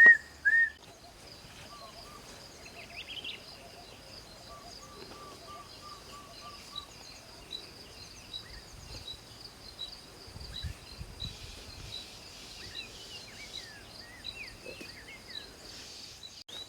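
Several wild birds calling in woodland. Two loud whistled notes open it, and a thin high note repeats steadily, a little faster than once a second. A short run of lower piping notes and scattered chirps sit among them.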